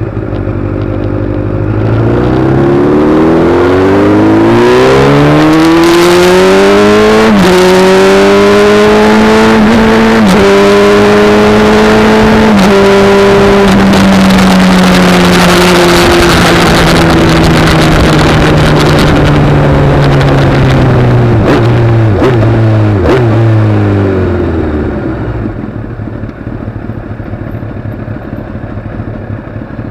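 A vehicle's engine accelerates hard, its pitch climbing and dropping back at each of about three upshifts, then holds steady at speed under heavy wind rush on the microphone. Near the end it slows, the pitch falls, and the engine eases off to a much quieter low running.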